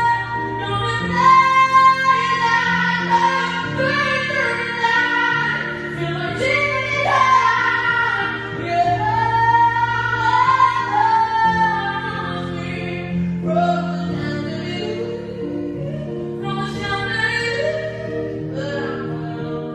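A female voice singing a melody with long held notes over sustained accompaniment chords.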